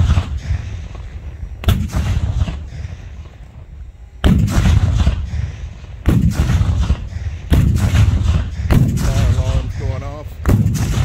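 A battery of black-powder cannons firing a salute in turn: six loud booms a second or two apart, each trailing off in a rumbling echo.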